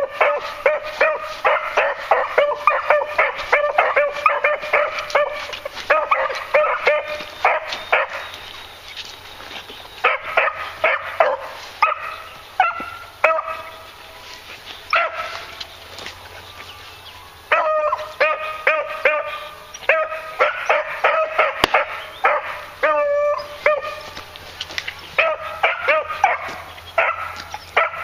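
Beagles baying as they work a scent trail, giving rapid short high-pitched yelps, several a second. The calls thin out to a few scattered yelps around the middle, then pick up into a steady run of yelps again in the second half.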